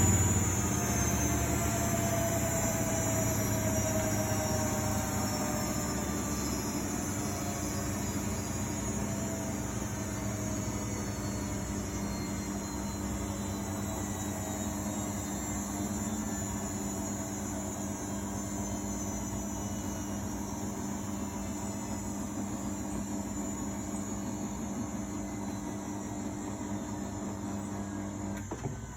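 Miele Novotronic W828 front-loading washing machine winding down after its final spin: the motor whine falls slowly in pitch as the drum coasts down. A steady low hum runs underneath and cuts off near the end.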